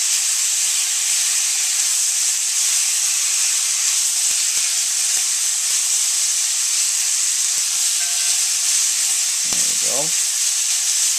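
Stir-fry of chicken, ginger, garlic and carrots sizzling loudly in a very hot oiled wok on high heat: a steady, even hiss. This loud, sustained sizzle is the sign of proper stir-fry heat being maintained.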